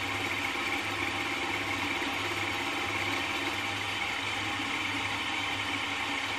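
Vertical milling machine running steadily, its end mill taking a cut along the corner of a clamped aluminium block.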